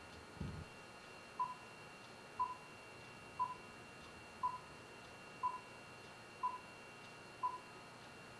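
Countdown leader beeps: a short high beep once a second, seven in all, starting about a second and a half in. A brief low thump comes just before the first beep.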